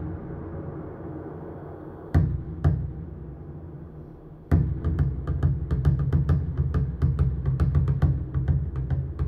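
Percussion music played through a Klipsch The ONE II Bluetooth speaker: a few heavy, deep drum hits, then a fast, busy drum rhythm with strong bass starting about halfway through.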